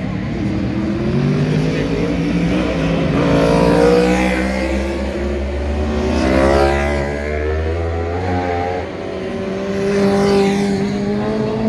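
Classic racing motorcycle engines revving hard as the bikes approach and lean through a corner, the pitch climbing and dropping again several times with the throttle and gear changes, the loudest rise as a bike passes near the end.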